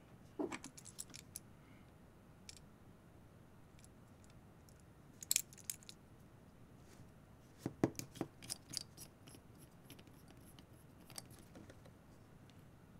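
Small clicks and taps of a rubber-gripped metal camera bracket being handled, in a few short clusters: just after the start, about five seconds in, and around eight seconds in.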